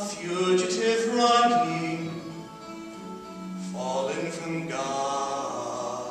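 A man singing a slow melody into a handheld microphone, holding long notes.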